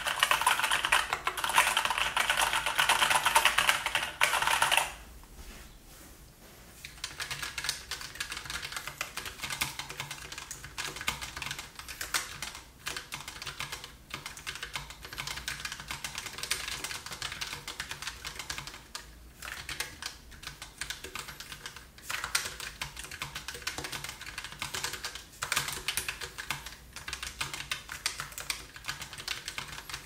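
Typing on a Keychron K1 wireless mechanical keyboard with low-profile Gateron switches: a fast, dense run of loud key clacks for about five seconds. After a short lull, typing continues on a Keychron K8 wireless mechanical keyboard, its keystrokes quieter.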